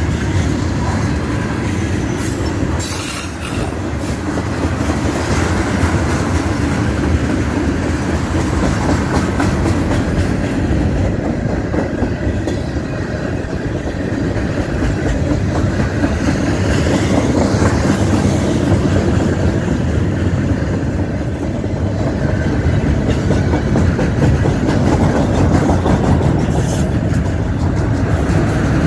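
Freight cars of a Canadian National manifest train, tank cars then autoracks, rolling past: a steady loud rumble of steel wheels on the rails, with a brief high squeal about three seconds in.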